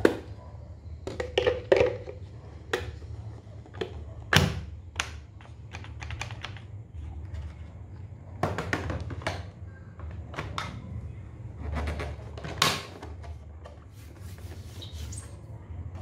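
Hard plastic parts of an Electrolux bagless canister vacuum cleaner clicking and knocking as the dust container and its HEPA filter are handled and fitted back into the body. Irregular sharp clicks, the loudest about four seconds in, over a low steady hum.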